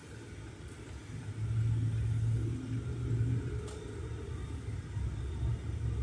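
Low engine and road rumble heard inside the cab of a 2020 Chevrolet Silverado with the 5.3 L V8, growing louder about a second and a half in as the truck picks up speed. The scan tool's misfire counters read zero, so the engine is running without detected misfires.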